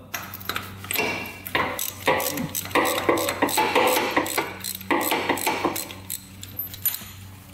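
Spark plug being loosened from the cylinder head of a Honda Fourtrax 300 ATV engine with a socket wrench and extension: a run of uneven metal clicks and clinks from the tool, which stops near the end.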